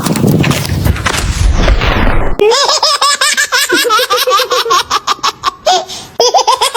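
A loud, noisy clatter with a high sweep falling in pitch. About two and a half seconds in it gives way to rapid, high-pitched laughter, several quick ha-ha syllables a second, broken by short pauses.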